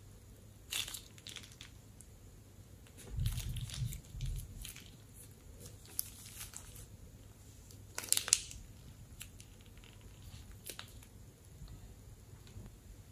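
A rubber balloon full of pink slime glue being squeezed and handled: scattered crinkling and rubbing noises, with a few dull knocks about three to four seconds in and the loudest crackle about eight seconds in.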